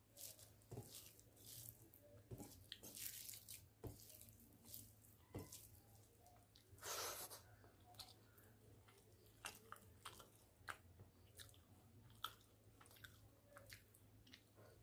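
Close eating sounds of a man eating rice and curry by hand: wet chewing and lip-smacking with many small clicks, and fingers squishing rice into gravy on a steel plate. A brief breathy rush about seven seconds in is the loudest sound.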